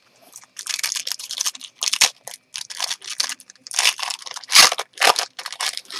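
Trading cards and their packaging being handled: crinkling and rustling in a string of short bursts, loudest about four and a half seconds in.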